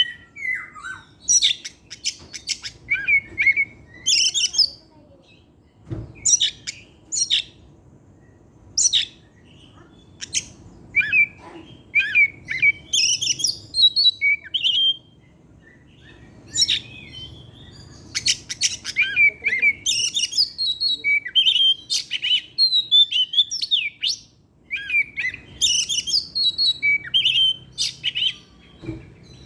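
Oriental magpie-robin (kacer) singing: bursts of varied whistles, chirps and sharp notes, phrase after phrase with short pauses between.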